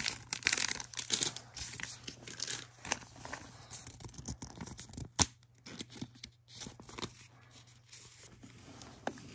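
Thin plastic trading-card sleeve crinkling and rustling as a card is worked into it, a quick run of crackles and ticks that is busiest in the first few seconds, with one sharp tick about five seconds in.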